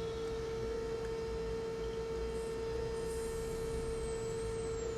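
Steady electrical hum: one held mid-pitched tone with fainter overtones above it and a low background rumble, unchanging throughout.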